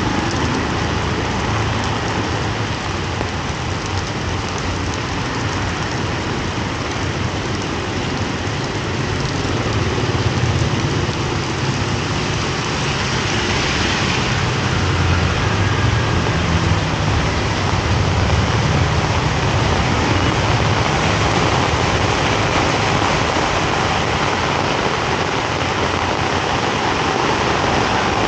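Heavy rain falling on a wet city street, a steady hiss, with the low running of motorbike and tuk-tuk engines that swells as traffic passes in the middle.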